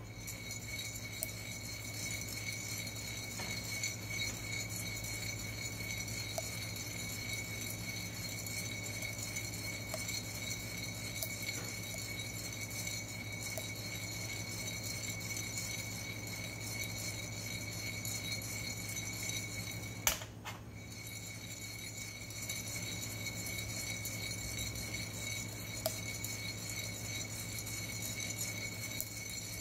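Coffee beans rattling inside a ceramic hand roaster as it is swirled over a portable gas burner, during the development stage of the roast, over the burner's steady hiss. A few faint sharp clicks come through, and one loud knock about twenty seconds in.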